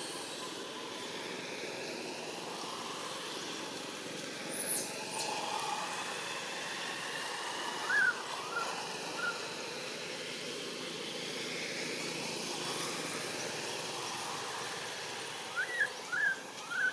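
Steady outdoor background noise with a few short, high chirps or squeaks: a small cluster about eight seconds in and three quick ones near the end.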